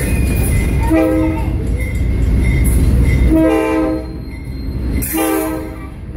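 A train horn sounding three blasts, a short one about a second in and two longer ones later, over the low rumble of the moving train on the track, which eases after about three seconds.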